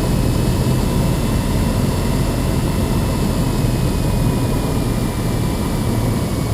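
Cabin noise of a Cessna 172N gliding in to land: its four-cylinder Lycoming engine throttled back to idle and the rush of air past the airframe, a steady low drone. A faint high whine slowly falls in pitch throughout.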